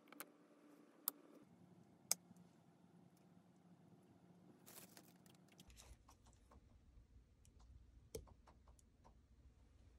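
Faint handling of a plastic two-AA battery holder as batteries are fitted: a sharp click about a second in, another about two seconds in, a brief rustle midway and a few small ticks, with one more click near the end.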